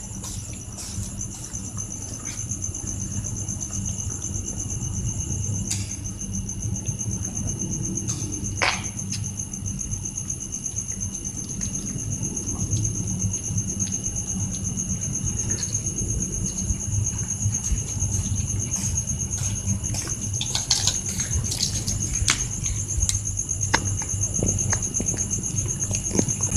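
Crickets chirring in a steady high trill, over a low background rumble, with scattered small clicks of stray cats chewing fish scraps.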